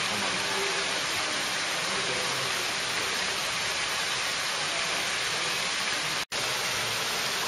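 Steady, even rushing hiss, like running water, that cuts out for an instant about six seconds in.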